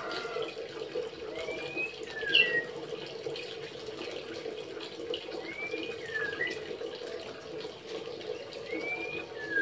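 White-rumped shama giving short whistled calls, a rising whistle followed by a falling one, three times over the stretch, with a sharper high note after the first. A steady background hum runs under the calls.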